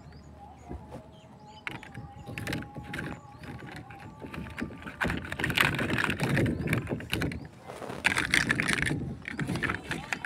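Chunky plastic toy building blocks clicking and knocking together as they are handled, pushed and pulled apart, with denser stretches of clattering about halfway through and again near the end.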